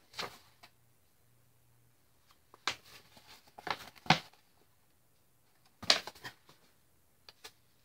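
Sheets of paper being pulled out and unfolded, rustling and crackling in a few short bursts with quiet gaps between.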